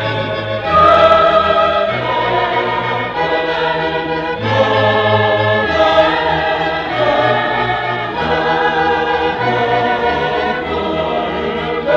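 A choir singing sacred classical music with string accompaniment: slow, sustained chords over a bass line that steps from note to note.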